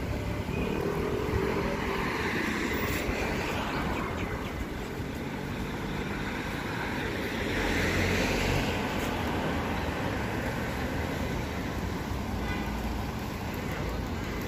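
Street traffic: cars running along a busy city road in a steady rumble, swelling as a vehicle passes about eight seconds in.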